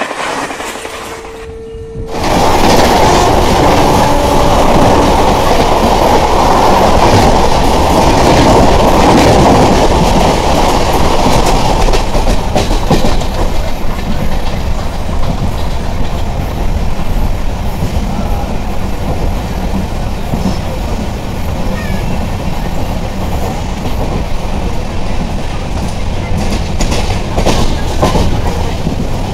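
Deccan Express passenger train running at speed, heard from an open coach door: steady wheel-and-rail noise mixed with wind, louder for the first ten seconds or so. It is preceded by a brief intro tone in the first two seconds.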